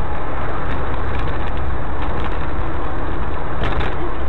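Car driving along: a steady rumble of engine and tyre road noise as picked up by a dash camera, with no crash or impact.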